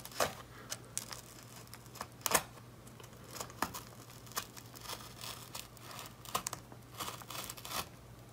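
Pocket-knife blade slitting the tape along the seam of a cardboard box: soft, scattered scrapes, crinkles and small clicks at irregular intervals.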